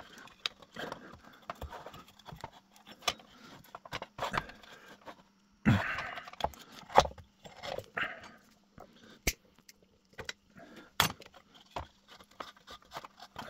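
Irregular clicks, light knocks and rattling scrapes of a lamp and its cable being handled as the new cable is pulled back through the lamp, with a couple of sharp clicks later on.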